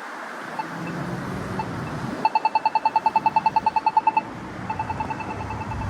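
Polara iNS accessible pedestrian signal pushbuttons ticking. A slow locator tick comes about once a second, then about two seconds in a loud rapid ticking starts, about ten ticks a second, that marks the walk interval. A fainter rapid ticking from a second button follows near the end, over low traffic noise.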